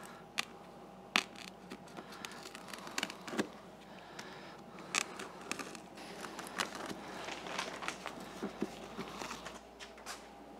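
Foil-backed sound deadening mat being handled and trimmed: quiet, irregular clicks and crinkles, with a few sharper snaps among them.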